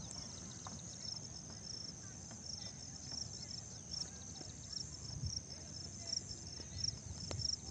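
Insects chirping in a steady, high-pitched pulsing trill, about three pulses a second, over a low background rumble.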